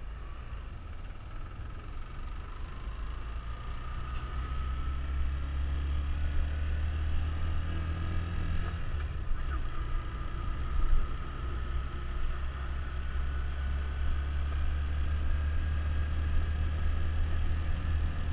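Suzuki GZ150 motorcycle's single-cylinder four-stroke engine running while riding along, its note getting a little louder over the first few seconds and then holding steady.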